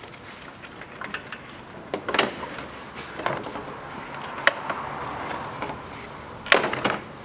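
A thin plastic tube and a rubber power-steering hose rubbing and knocking as gloved hands push the tube inside the hose, with a few scattered dull knocks and rustles, the loudest near the end.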